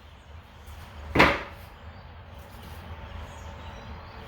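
A piece of 2x6 lumber knocked down on a work surface: one sharp wooden knock about a second in, over a low steady hum.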